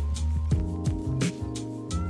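Background music with a steady drum beat over a bass line and sustained chords.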